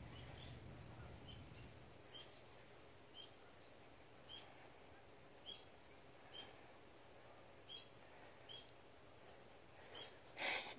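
Near silence with a faint, short, high chirp repeating about once a second. One louder breathy huff or rustle comes near the end.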